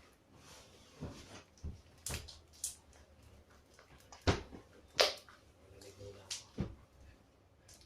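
Homemade slime being squeezed and kneaded by hand: a string of irregular short wet squelches and pops, the loudest two a little past four and five seconds in.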